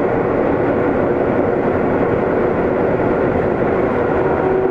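Sendai Subway Namboku Line 1000 series train running between stations, heard from inside the car: a steady rumble of wheels on rail. Near the end, two faint whining tones come in and fall slightly in pitch.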